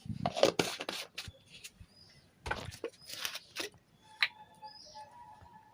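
Kitchen handling sounds of ingredients being spooned into a mixing bowl: two short bouts of scraping and rustling, then a single sharp clink about four seconds in. Faint high chirps follow near the end.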